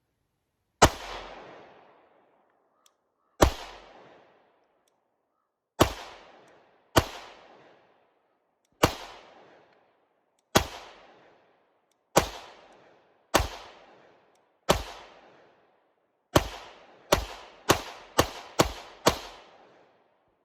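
Fifteen gunshots, each followed by a short echoing tail. They start slow and spaced, then speed up to a rapid string of five shots near the end.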